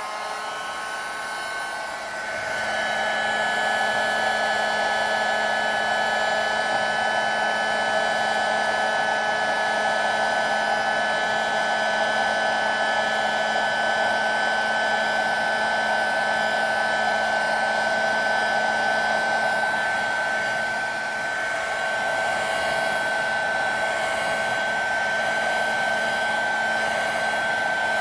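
Electric heat gun running steadily, its fan blowing with a whine of a few held high tones, dipping briefly about two-thirds of the way through. It is being waved over sanded kayak plastic to melt the surface glossy again.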